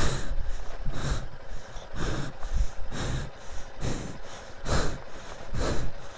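A man breathing hard and rhythmically close to the microphone, one loud breath about every second. The panting is deliberately heavy, staged to sound tense.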